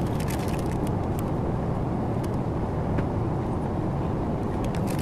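Steady drone of an airliner cabin in cruise, the engine and airflow noise heard from a passenger seat. On top of it, light rustling and clicks of a paper wrapper and small plastic toiletry tubes being handled.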